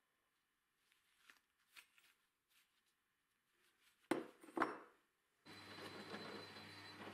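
A few faint handling clicks, then two sharp knocks about four seconds in as a bent square steel tube is set down on a wooden workbench. About five and a half seconds in, a drill starts abruptly and runs steadily with a low hum and a high whine while a step drill bit bores into the steel tube.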